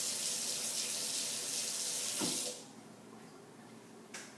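Water tap running into a sink, turned off about two and a half seconds in. A short click near the end.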